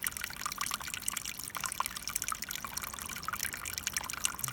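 Small mountain creek trickling steadily, with many small splashes and drips.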